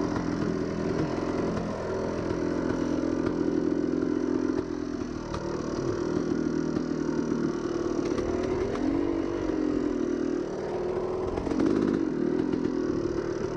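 Yamaha YZ250 single-cylinder two-stroke dirt bike engine running at low to middling revs on the trail. Its pitch wavers with the throttle, dropping and picking up again several times in the second half.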